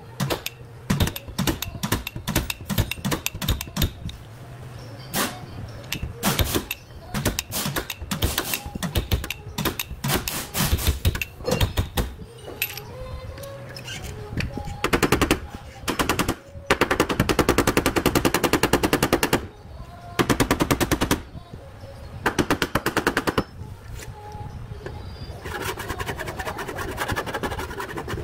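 Spot-welding dent puller (spotter) working a steel wheel-arch panel. It makes many short, sharp zaps and knocks as it is struck lightly and repeatedly to pull the dent out gradually. About halfway through come a few bursts of very rapid rattling, each lasting one to three seconds.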